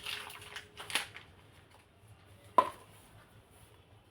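Kitchen utensils and ingredient containers being handled on a worktop: a few light clicks and knocks in the first second, one sharp click about two and a half seconds in, then little else.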